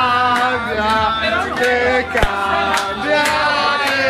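Men singing loudly over background music with steady bass notes, with a few sharp hits along the way.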